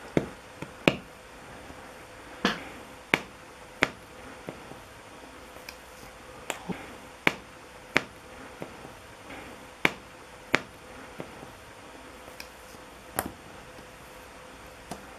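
Fingernail picking at the edge of a sticker on a glossy cardboard box: irregular sharp clicks and ticks, roughly one a second.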